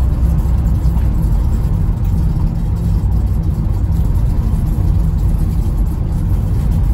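Renault Trafic's 1.9 dCi four-cylinder turbo-diesel engine running steadily at about 2,000 rpm at roughly 40 mph, heard from inside the cab along with road noise.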